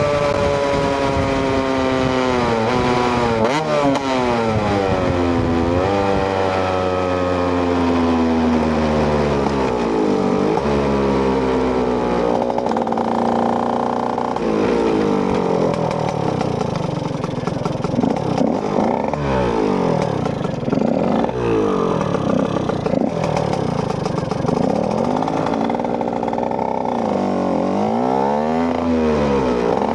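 KTM EXC 125 single-cylinder two-stroke motorcycle engine running on the move. For the first half the revs fall in long slides, broken by quick short rises. From about halfway the revs rise and fall again and again.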